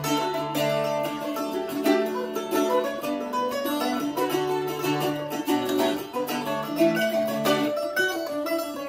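Eastman MD515 F-style mandolin and Ó Ráinne Irish bouzouki played together, a steady stream of picked notes over lower strummed strings.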